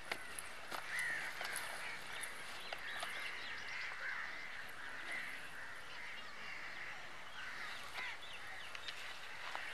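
Birds calling over and over, short arched calls about two a second. A few sharp knocks come from a wooden stick digging into dry ground.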